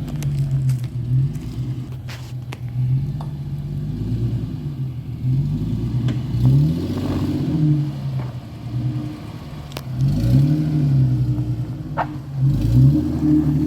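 Off-road 4x4's engine revving up and falling back again and again as it crawls over rocks, with a few sharp clicks and knocks.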